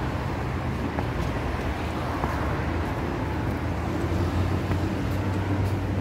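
Steady low rumble of road traffic, swelling a little about four seconds in.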